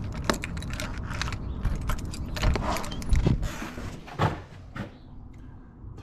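A bunch of keys jangling and clicking as a key is worked in a door's knob lock. The rattling dies down after about four and a half seconds.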